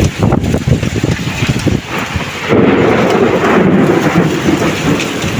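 Heavy rain pouring, with a low rumble that swells about two and a half seconds in and holds.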